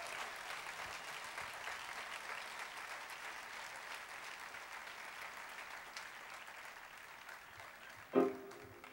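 Concert audience applauding, the applause slowly fading. A short, loud pitched sound cuts in near the end.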